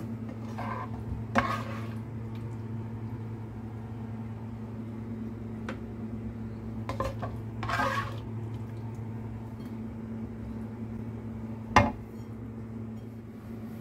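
A spatula scraping and clinking against a wok and plate as a beef, cucumber and carrot stir-fry is served, in a few short scrapes with a sharp knock near the end. A steady low hum runs underneath.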